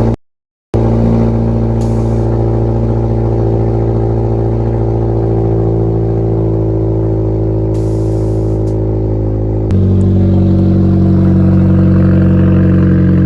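Car engine running at a steady speed, a 1.5-litre turbocharged four-cylinder Honda Civic Si; about ten seconds in its note shifts to a different, slightly louder pitch.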